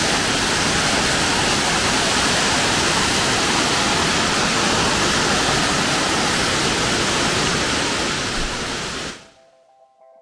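Waterfall crashing down rock steps into a shallow pool: a loud, steady, unbroken rush of water that cuts off suddenly about nine seconds in, followed by faint guitar music.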